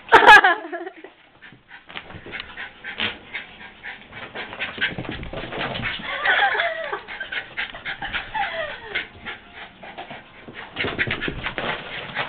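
Excited pet dogs whining and yipping, with a loud high cry right at the start and a couple of wavering whines later, over a steady patter of quick clicks and scuffles that thickens near the end.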